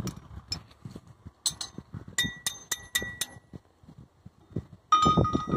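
Metal parts of a tractor's rear three-point hitch clinking as they are handled: a quick run of sharp clinks that ring briefly in the middle, then a louder clank with a lingering ring near the end.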